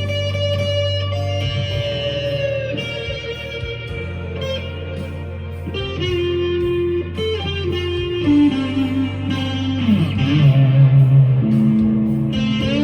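Harley Benton SC-400 GT electric guitar playing a slow lead line of held single notes, with string bends sliding the pitch, most clearly about ten seconds in.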